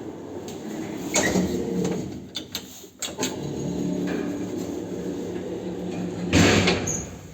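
2009 KMZ passenger lift's automatic sliding doors and mechanism at work: a sliding whoosh about a second in, a run of sharp clicks around the middle, a steady hum, and a louder sliding rush near the end.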